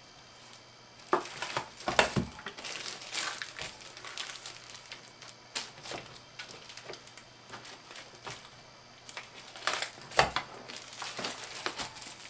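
Plastic shrink film crinkling as it is handled and pressed under a hand-operated heat-sealer bar, with a few sharp knocks of the sealer arm, the loudest about two seconds in and again about ten seconds in.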